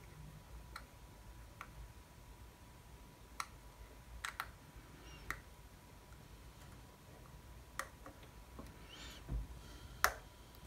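Faint, scattered clicks of fine metal tweezer tips tapping and pressing small kit window pieces into a card frame: about eight sharp ticks, the loudest near the end, with a brief soft rustle just before it.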